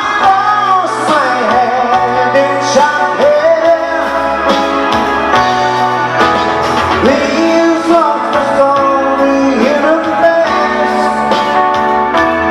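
Live pop ballad: a man singing over a band backing with held chords and a steady drum beat.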